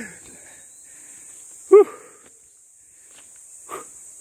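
Steady high-pitched buzzing of forest insects throughout. A man's short, loud vocal exclamation comes about two seconds in, and a fainter one near the end.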